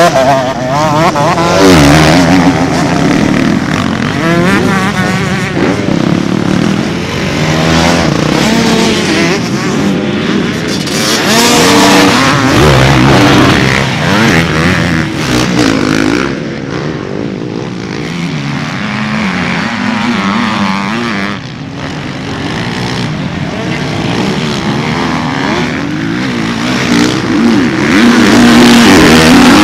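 Several motocross dirt bike engines revving hard, the pitch rising and falling over and over as the bikes accelerate, jump and shift, loudest near the end as one passes close.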